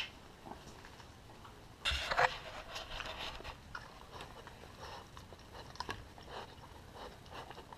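English Mastiff puppy eating sardines off a concrete floor: irregular short chewing and mouth noises, with a louder burst about two seconds in.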